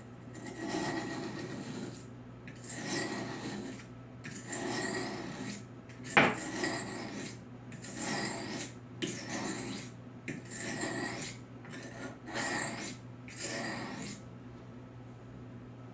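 Steel knife blade scraping along a coarse sharpening stone in about ten separate strokes, each about a second long, while the edge is rough-sharpened at a raised angle to raise a burr. A sharp click about six seconds in is the loudest moment, and the strokes stop a little before the end.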